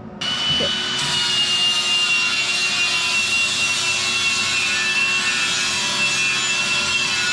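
Handheld power grinder starts up suddenly and grinds steadily, a loud rasping noise with a high whine that sags slightly in pitch as it bites into the work.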